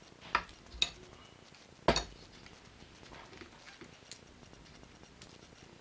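Small metal Torx bits clicking as they are handled and set down: three sharp clicks in the first two seconds, the loudest about two seconds in, then a few faint ticks.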